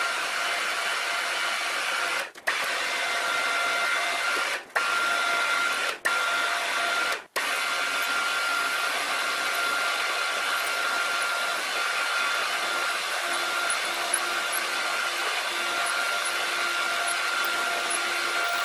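Bernardo BF 30 G milling machine running, its spindle driving a twist drill down through a block of aluminium: a steady machine hum with a constant high whine. Four brief dropouts break it in the first seven seconds or so.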